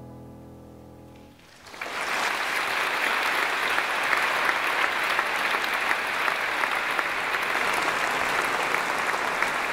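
A choir's last chord dies away, then a large audience breaks into applause about a second and a half in and keeps clapping steadily.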